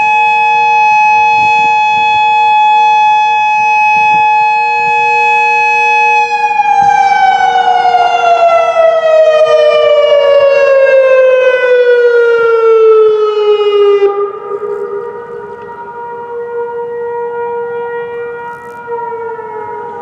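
Modulator 4016 electronic tornado siren sounding its steady alert signal, a held two-tone chord. About six seconds in the upper tone starts gliding down in pitch as the siren winds down, and the loud sound cuts off about fourteen seconds in. Fainter siren tones carry on after it.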